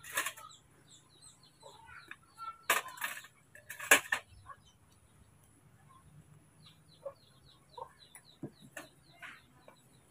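Plastic cups and a glass clattering and knocking on a tray while milk is mixed, the loudest knocks about three and four seconds in, then lighter spoon and lid clicks. Birds chirp in the background throughout.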